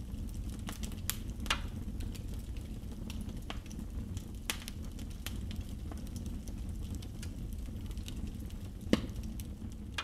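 Oak and hornbeam logs burning in a fireplace, crackling with scattered sharp pops over a steady low rumble.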